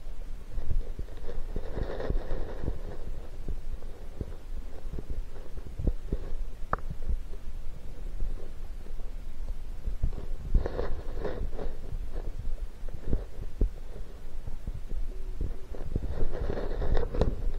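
Underwater sound picked up by a submerged camera: a low, steady rumble of moving water with scattered small clicks and knocks. It swells louder about two seconds in, around ten to eleven seconds in, and again near the end.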